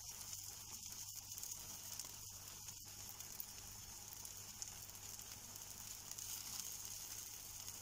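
Eggs, mushrooms and peppers sizzling steadily and quietly in a frying pan as the egg mixture cooks.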